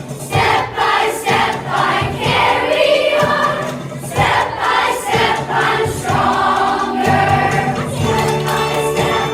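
A choir singing, many voices holding notes together, with a steady low part joining about seven seconds in.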